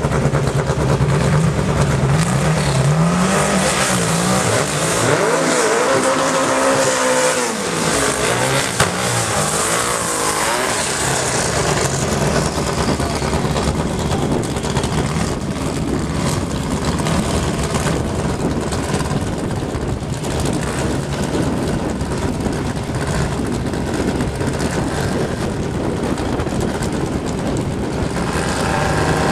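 VW Beetle drag-car engines running loud at the strip. One revs up and down in pitch a few seconds in, then the engine sound runs on steady through the rest.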